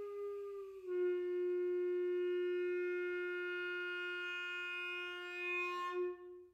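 Solo clarinet holding a long note that glides down a step about a second in. The lower note is held on and grows brighter and louder toward the end, then breaks off near the end.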